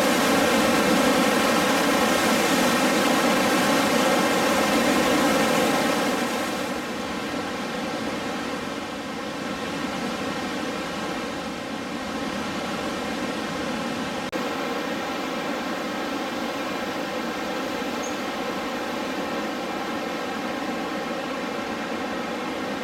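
Whitewater rapids of a swift, high-running mountain river rushing steadily. After about six seconds the rush turns quieter and duller.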